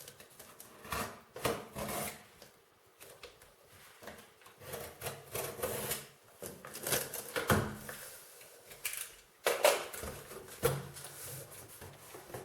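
A large cardboard box being cut open and handled: irregular scraping, rustling and knocks, the loudest knock about nine and a half seconds in.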